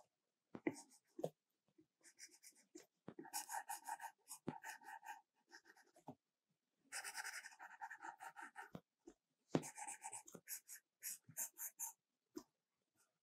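A stylus scratching and tapping on an iPad Pro's glass screen in quick, short drawing strokes, coming in runs separated by brief pauses.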